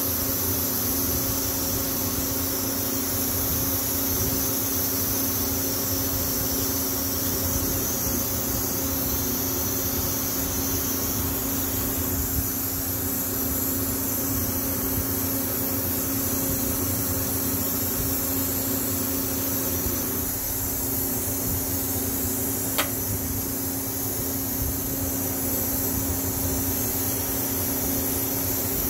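Steady electrical hum with a high hiss from a Walter Surfox 305 electrochemical weld-cleaning unit while its wand cleans weld burn off the chamber welds. A single sharp click comes about 23 seconds in.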